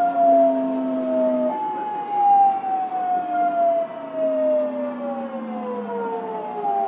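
Fukuoka City Subway 2000 series train's inverter-driven traction motors whining as the train brakes, several tones falling steadily in pitch with a sudden jump back up about one and a half seconds in as the inverter changes mode.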